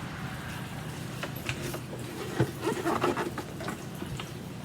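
Scattered light clicks and knocks from handling a vintage Hoover Convertible upright vacuum while its wheels are checked, with a burst of rattling about halfway through.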